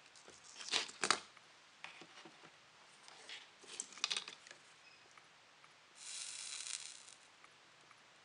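Small handling clicks and rustles as wire and a solder spool are moved, loudest about one second in and again about four seconds in, then a hiss lasting about a second, about six seconds in, as the soldering iron melts flux-cored solder onto a wire.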